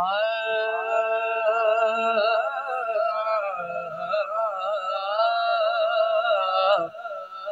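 Solo naat vocal sung into a microphone: a long, wavering, ornamented note held without words over a low steady drone. The voice drops and breaks off near the end.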